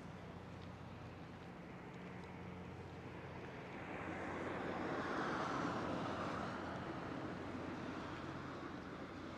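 A vehicle passing: a rushing noise swells about four seconds in, peaks near the middle and fades away, over a steady low machinery hum.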